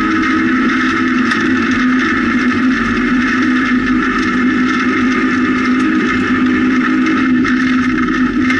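Rally car heard from inside the cabin, its engine held at steady revs under load on a gravel stage, with a constant rush of tyre and gravel noise.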